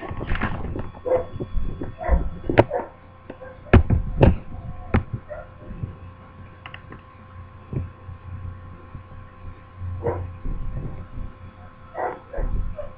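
A dog yipping and whimpering a few times in short calls, among scattered sharp knocks and a faint steady hum.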